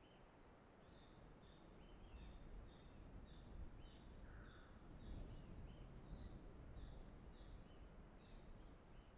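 Faint outdoor bird calls: a small bird repeats short high chirps about twice a second, and a thin falling whistle from another bird comes about three seconds in. A low rumble, like wind on the microphone, sits underneath and swells a little after the first couple of seconds.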